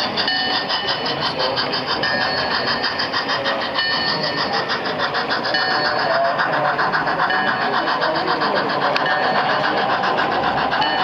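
Model steam locomotive's sound unit chuffing at a fast, even beat as the engine runs along the layout.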